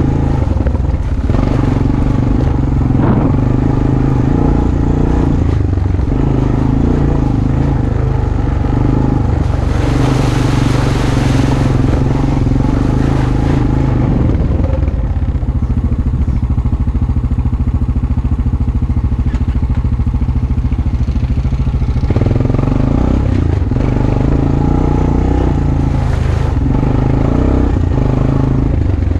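ATV engine running steadily while riding a trail, with the engine note shifting slightly as the throttle changes. A rushing hiss rises over it for a few seconds about a third of the way in.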